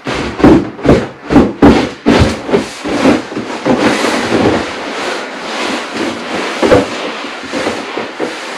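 Vinyl pool inflatables being punctured and deflated: a quick run of loud thumps in the first two seconds, then a steady rush of air escaping from the punctured vinyl.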